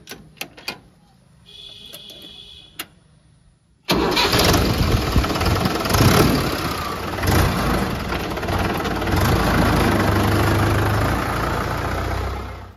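Swaraj 843 XM tractor's three-cylinder diesel engine being started: a few clicks, then about four seconds in the engine catches suddenly and runs loud and uneven before settling into a steady run.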